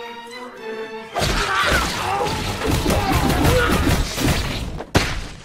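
Animated soundtrack effects: soft held music notes, then about a second in a loud crashing rush of noise that lasts several seconds, ending in one sharp hit near the end.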